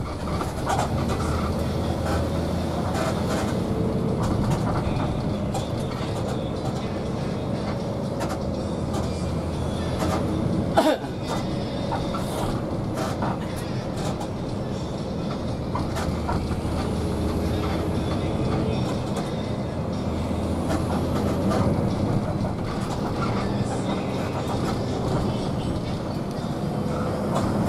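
Inside a moving coach bus: steady engine and road rumble with small interior rattles, and one sharp knock about eleven seconds in.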